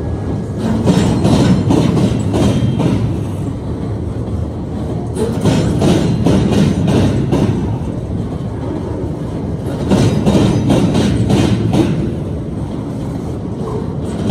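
Steel wheels of freight flatcars loaded with welded rail clattering over a railroad diamond crossing under a steady rolling rumble. A cluster of bangs comes about every four to five seconds as each car's wheel sets cross the diamond, three times.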